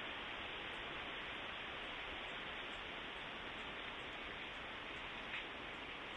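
Steady, even static-like hiss with no distinct sound events, typical of a trail camera's own recording noise.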